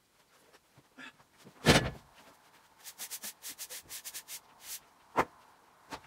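A heavy wooden thump as a freshly sawn birch slab is set down, then a quick run of short rubbing strokes, a hand brush sweeping sawdust off the wood, and a single sharp knock near the end.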